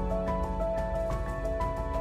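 Background music: held melodic notes that change every half second or so, over a quick, steady beat.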